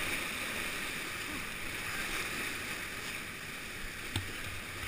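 Churning whitewater rushing steadily at the foot of a weir, with a single light knock about four seconds in.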